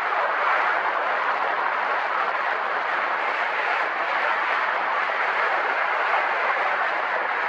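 Steady rushing noise of wind blowing across the microphone, even and unbroken.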